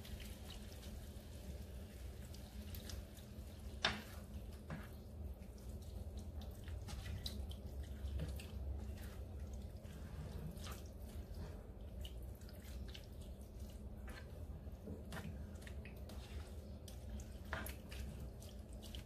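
A spatula stirring chicken pieces through a thin milky sauce in a frying pan: wet sloshing with scattered light taps against the pan and one sharper knock about four seconds in, over a low steady hum.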